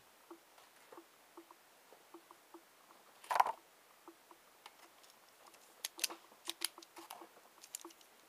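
Desk handling noises. A short rustle about three seconds in as a sheet of paper is laid down, then a run of sharp clicks and taps as a metal pen is picked up over the paper. Faint irregular ticking runs underneath.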